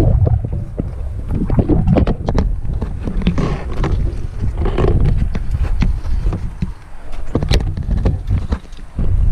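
A hiker scrambling down over rock: irregular scuffs, knocks and scrapes of boots, hands and clothing on stone and loose gravel, over a heavy low rumble on a body-worn microphone.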